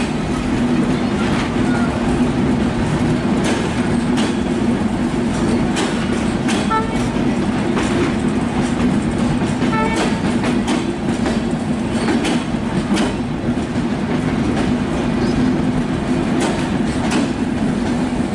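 Passenger coaches of a departing express train rolling past, their wheels clicking over rail joints every second or so over a steady low rumble.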